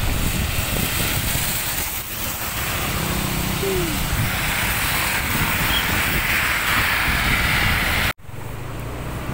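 Strong storm wind buffeting the microphone over the steady hiss of heavy rain, with road traffic in the mix. The sound cuts off abruptly a little after eight seconds in and comes back quieter.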